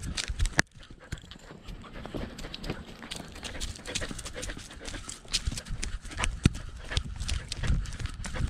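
Knocks and scuffs picked up by a GoPro on a moving dog's collar: its steps and the camera jostling, coming irregularly, with the sharpest knocks in the first half second.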